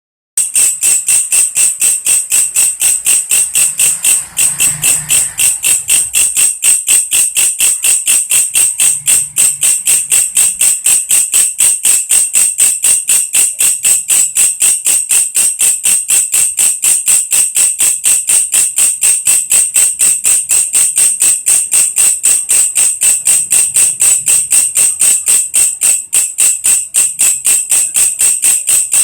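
Belalang kecek (walang kerik) insect stridulating: a loud, high-pitched, fast and even train of pulses that goes on without a break.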